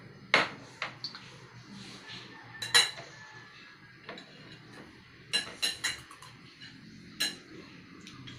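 Metal spoons and forks clinking against plates while eating: scattered sharp clinks, the loudest about three seconds in, with a quick run of three a little past halfway.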